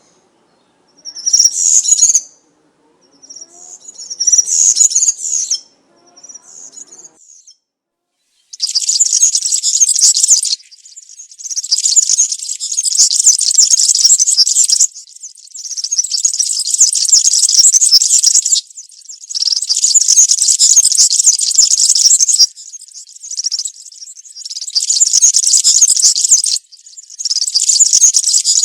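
European serin singing its fast, high, jingling song. A few short phrases come first, then from about eight seconds in long phrases of a few seconds each with brief pauses between them.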